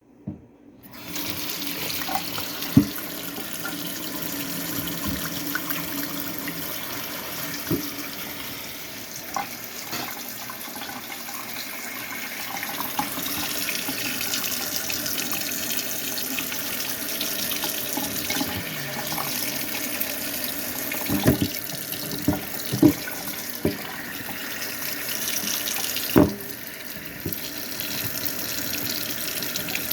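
Tap water running steadily, pouring over ice, with scattered sharp clicks and knocks and a cluster of them about two-thirds of the way through.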